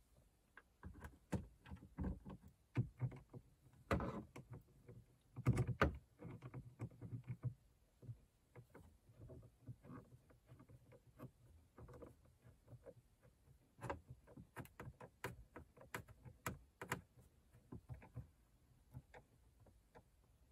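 A Craftsman 7 mm hand nut driver tightening small hex-head screws into the plastic dash. The handling makes faint, irregular clicks and light knocks, a few louder ones about four and five and a half seconds in.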